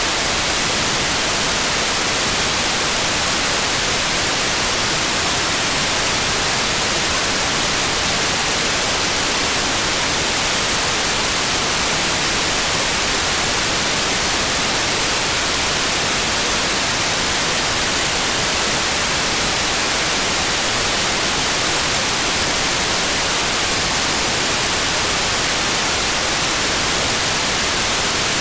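Steady static hiss of FM-demodulated audio from an RTL-SDR receiver tuned to 435.7 MHz, the D-Star-ONE Sparrow satellite's 4800-baud GMSK downlink, with no breaks or distinct bursts.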